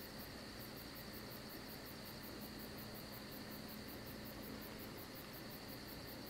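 Faint steady background noise in a pause between spoken phrases: a soft hiss with a low hum and a faint high pulsing repeating several times a second.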